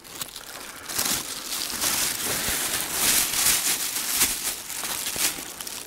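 Dense, close rustling and crackling of leaf litter, twigs and handled gear on the forest floor, starting about a second in and running on with many small cracks and clicks.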